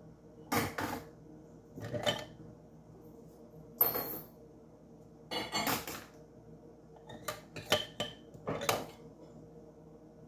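Cutlery and dishes clinking and clattering as they are hand-dried with a towel and set down: a string of about eight short, separate clatters.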